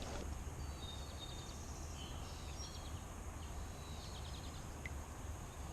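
Steady low outdoor rumble, with a bird singing short high trills several times.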